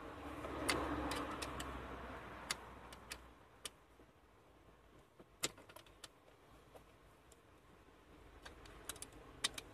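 Light metallic clicks and taps of bolts and an Allen key being handled while the throttle position sensor's bolts are fitted to the throttle body, with soft rustling of handling in the first few seconds.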